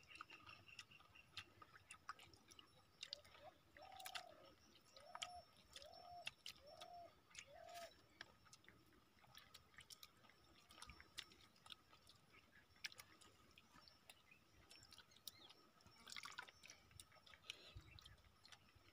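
Near silence with very faint wet clicks and drips of eating fermented rice by hand: fingers working the watery rice in a clay pot, and chewing. A few seconds in, five short, faint whistled notes about a second apart.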